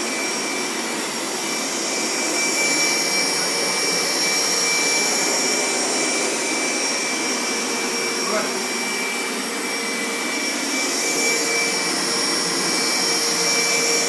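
Hoover MaxExtract carpet washer running as it is worked over carpet: a steady, loud motor rush with a high whine.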